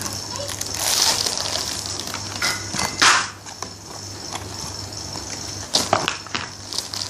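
Packaging being handled: irregular crinkling and rustling with a few sharp clicks, loudest in a short burst about three seconds in.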